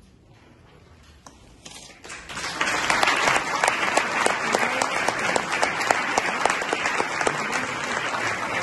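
About two seconds of hush after a concert band's final chord, then audience applause breaks out and swells into steady, dense clapping.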